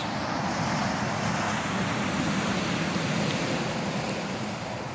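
A passing car: steady tyre and engine noise with a low hum underneath, easing off slowly near the end.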